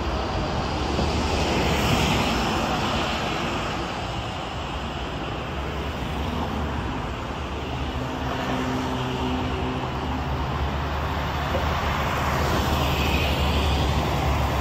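City street traffic: cars passing on the road over a steady low engine rumble, swelling louder twice.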